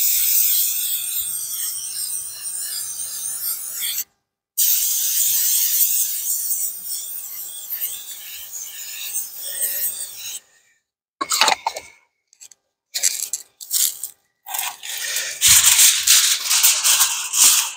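Aerosol can of contact spray adhesive hissing in long sprays. It breaks off abruptly a few times, with a run of short spurts in the middle.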